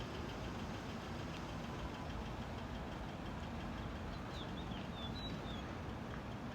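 Steady, even rumble of a jet airliner's engines high overhead, with a few faint, short high chirps about four to five seconds in.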